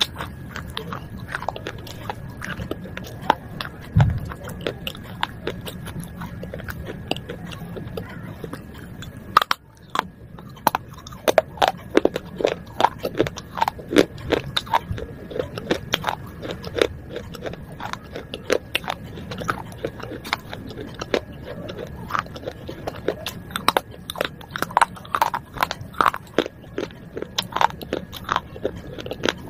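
Close-up biting and chewing of broken baked clay pot shards: rapid, irregular sharp cracks and gritty crunches. The sound cuts out briefly just before ten seconds in, and the crunching is denser after it; a faint steady high tone sits underneath throughout.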